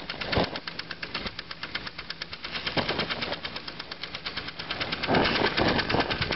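Scratch-built live steam model engine with a single oscillating brass cylinder running: a fast, even beat of steam exhaust and clatter, many strokes a second, getting a little louder about five seconds in.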